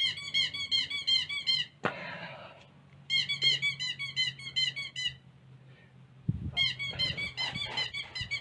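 Toy squeaker horn squeezed over and over, giving quick high squeaks about five or six a second in three runs with short pauses between. A single knock comes about two seconds in, and a few more knocks come just before the last run.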